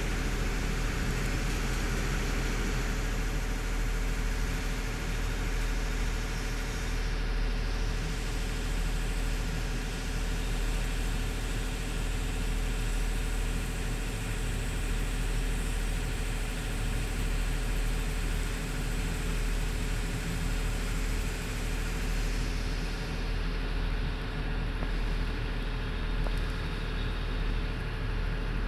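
Hydraulic excavator's diesel engine running at a steady, even pitch.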